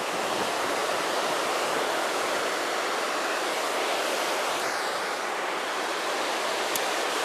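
Steady rush of river water pouring over a low weir, with a single faint click near the end.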